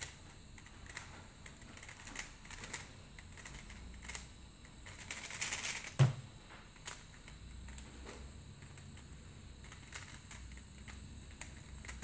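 Angstrom Valk 3 Elite M speedcube being turned fast, a run of quick plastic clicks that gets denser about five seconds in. About six seconds in, a hand slaps the laptop's spacebar to stop the timer with a loud thud. Sparser clicks follow, and another thud comes near the end.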